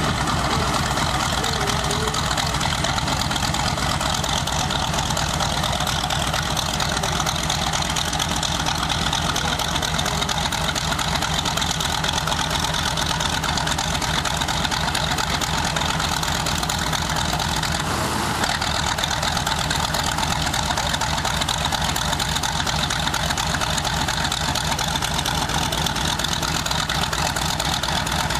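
Grumman TBM Avenger's Wright R-2600 twin-row radial engine idling steadily, with the propeller turning.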